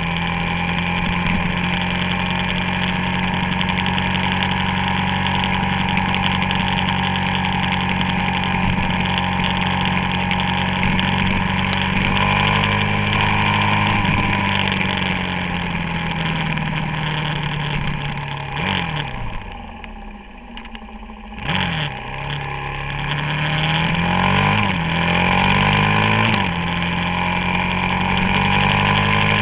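Suzuki DR-Z400SM's single-cylinder four-stroke engine running under way, its pitch rising and falling with the throttle. About two-thirds of the way through it goes quieter for a couple of seconds, then picks up again with a few short rising revs that each drop back sharply, like gear changes.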